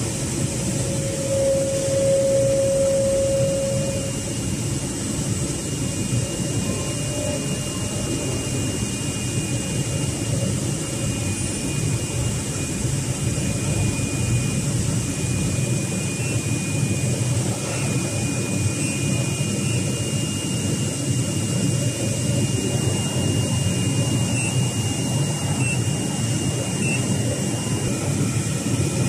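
Flatbed CNC digital cutting machine running with a steady rushing drone, a brief low hum near the start and faint high-pitched whines through the middle.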